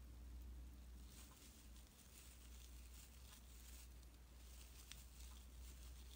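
Near silence: faint, soft rustling of a metal crochet hook pulling tinsel-like acrylic scrubber yarn through stitches, over a low steady hum.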